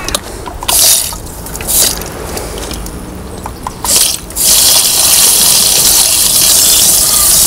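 Garden hose spray gun jetting water, first in three short bursts, then in a continuous spray from about four and a half seconds in, washing out a clogged fitting by a drain.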